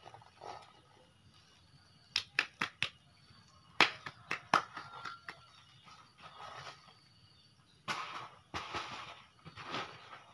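Handling noise from a heap of granular fertilizer and its plastic packaging: clusters of sharp clicks about two and four seconds in, then rustling later on.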